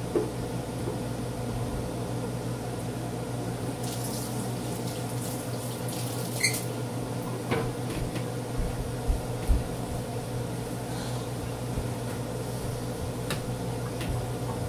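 Steady electrical hum of a running kitchen appliance, with a few light knocks and clinks of kitchenware scattered through it.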